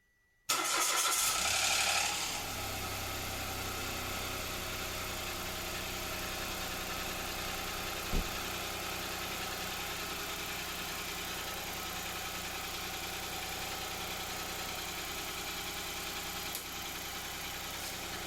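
Mitsubishi Mirage's 1.2-litre three-cylinder engine starting up about half a second in, louder for the first second or so, then settling into a steady idle with freshly fitted spark plugs. A short click sounds about eight seconds in.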